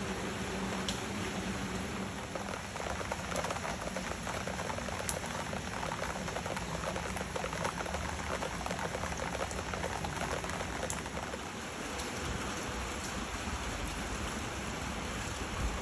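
Steady rain falling on leaves and wet paving, with many separate drop hits ticking through the hiss.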